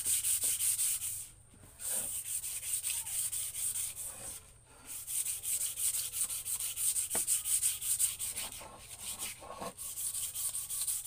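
Sandpaper rubbed by hand back and forth over a wooden boat paddle in quick, even strokes of about six a second, giving the paddle its final smoothing. The sanding stops briefly twice, about one and a half and four and a half seconds in, and goes softer for a while near the end.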